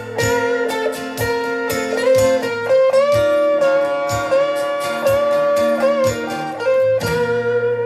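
Background music: an instrumental passage led by guitar, with long held notes that slide in pitch, over a steady beat.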